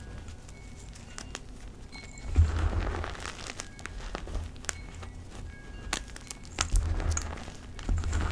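Hands squeezing and crunching loose powdered gym chalk in a bowl: soft crumbly crunches with fine crackles and dull low thumps. The crunching swells about two seconds in and again toward the end.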